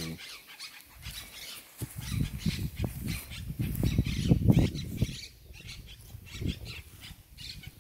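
Horse grazing close up: tearing and chewing grass with irregular crunches, busiest around the middle.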